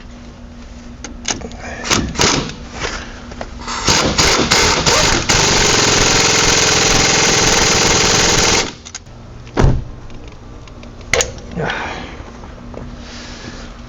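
Impact wrench on a socket and extension, blipped a few times and then run steadily for about three seconds before it cuts off sharply, followed by a single clunk.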